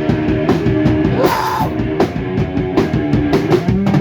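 A rock band playing loud and live through an instrumental stretch between vocal lines, with drum kit hits driving the rhythm under the guitars and bass.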